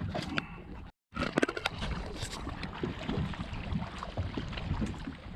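Open small-boat sounds on the water: a steady rush of wind and water with scattered clicks and knocks from handling gear in the boat. The sound cuts out completely for a moment about a second in.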